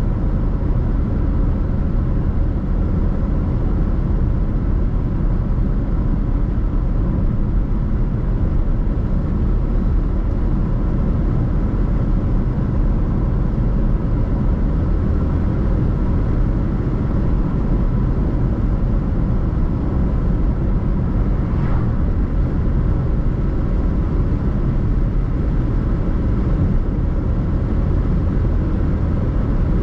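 A car being driven, with steady low road rumble and engine hum.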